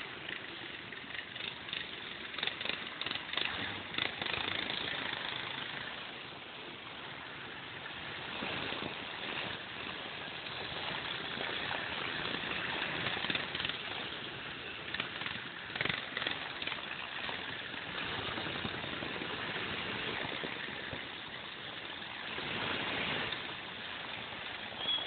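Lifted four-wheel-drive pickup truck engine running through mud, swelling louder and fainter several times.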